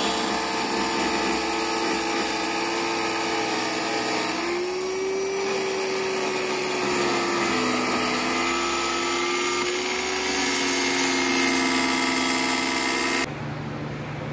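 Electric power tool motor running steadily, its pitch sagging and recovering a few times as it takes load. It cuts off abruptly near the end.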